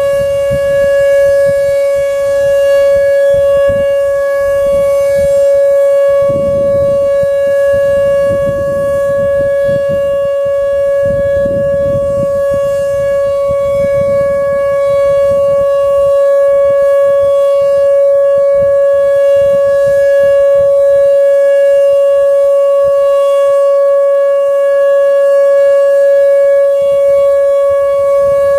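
Whelen WPS-2750 electronic outdoor warning siren sounding its steady Alert signal in a scheduled test: one loud, unbroken tone with overtones, holding the same pitch throughout.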